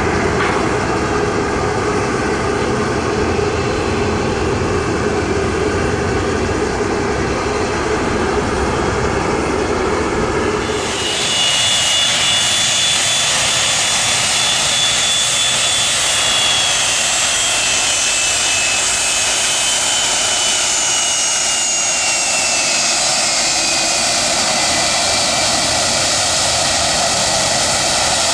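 Jet airliner engines running loud and steady, with a low rumble for the first ten seconds or so, then a high engine whine that slowly falls in pitch as the aircraft passes.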